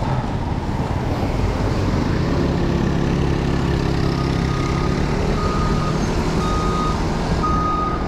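A truck's reversing alarm beeping about once a second, starting about four seconds in, over the low running hum of an engine and steady road and wind noise.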